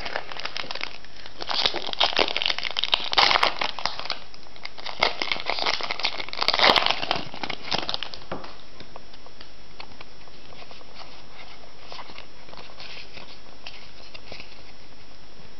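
Foil booster pack wrapper crinkling and being torn open, in bursts over roughly the first eight seconds, loudest twice; after that only faint scattered ticks.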